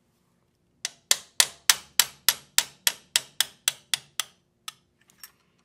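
Hammer tapping a punch to drift the factory front sight sideways out of the dovetail on a SIG P320 steel slide. There are about fourteen sharp metallic blows, roughly three a second, each ringing briefly. A couple of faint taps follow near the end.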